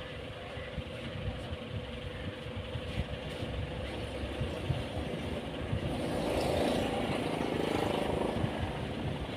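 Steady low mechanical rumble with hiss, swelling louder about six seconds in.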